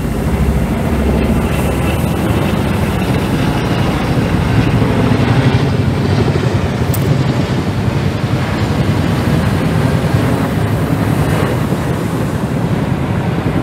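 Tandem-rotor military helicopters flying overhead, a steady, loud rotor beat that holds through the whole pass.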